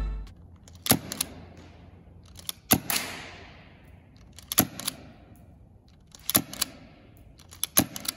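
Tokyo Marui MK23 fixed-slide (non-blowback) gas airsoft pistol with a suppressor fitted, fired in single shots. It fires about five times, roughly every two seconds. Each shot is a sharp pop, often with a smaller click close behind it.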